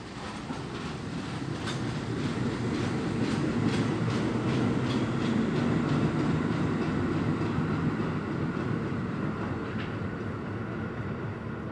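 Budd R-32 stainless steel subway train pulling out of the station and running off into the tunnel, its wheels clicking over the rail joints. The rumble builds over the first few seconds, then eases off toward the end as the train draws away.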